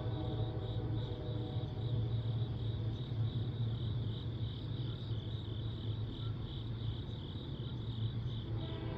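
Crickets chirping in a steady pulsing rhythm, about three pulses a second, over a low steady hum. A distant locomotive horn's sustained chord fades out at the start and sounds again near the end.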